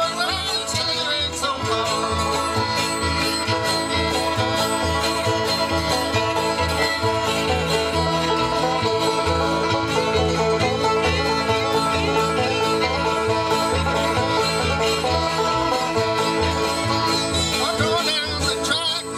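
Acoustic bluegrass band playing live: banjo, acoustic guitar, fiddle, mandolin and upright bass over a steady bass pulse.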